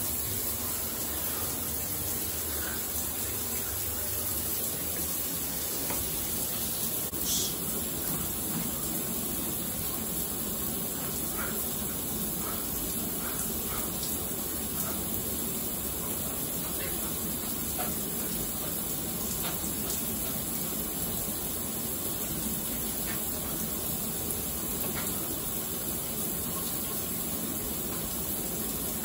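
Shower running: a steady, even rush of water spray, with a few faint soft taps over it.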